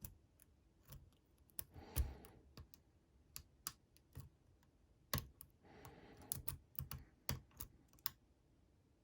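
Lock picking: a half-diamond pick tapping and clicking against the pins inside a Lockwood V7 lock held under light tension, in scattered, irregular small clicks.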